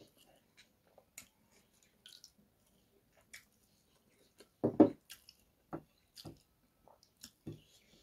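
Close-miked eating by hand: soft wet squishes and small mouth clicks as rice and chicken curry are mixed and chewed. A louder short sound comes a little past halfway, with a few smaller ones after it.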